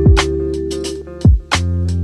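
Background music with a steady beat: deep drum thumps and sharp hits over sustained chords.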